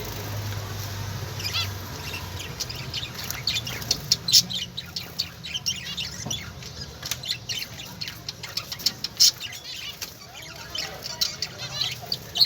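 Many small birds chirping and twittering together in a rapid, continuous stream of short high calls, some of them warbled. A low hum underlies the first couple of seconds.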